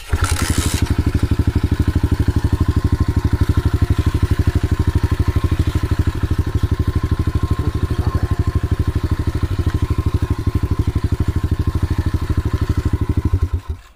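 A 125cc pit bike engine catches with a brief rush at the start, then idles steadily with a rapid, even beat. It cuts off abruptly shortly before the end.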